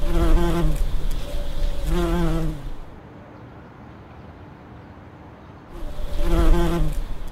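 Bumblebee buzzing with a wavering pitch as it flies about. It swells twice in the first few seconds, drops away for about three seconds, then comes back loud near the end.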